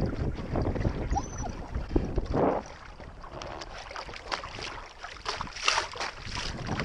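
Water splashing and lapping against a small sailboat's hull as it sails, with wind noise on the microphone. Louder splashes come about two and a half seconds in and again near the end.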